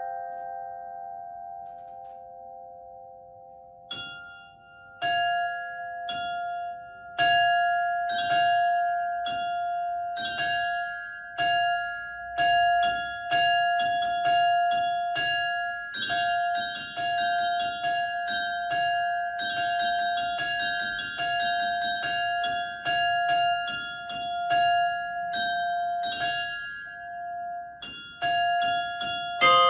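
Russian Orthodox church bells ringing: one bell's ring dies away over the first few seconds, then from about four seconds in smaller bells strike in quick, overlapping succession over a bell ringing steadily. A deeper bell is struck again near the end.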